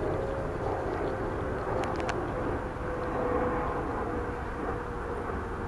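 Steady distant engine drone with a faint tone that slowly falls in pitch, over outdoor background noise.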